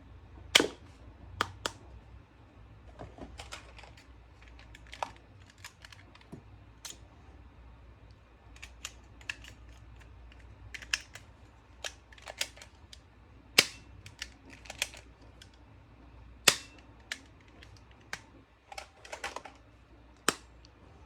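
Hard plastic toys clicking and snapping as they are handled: irregular sharp clicks, a few of them much louder than the rest.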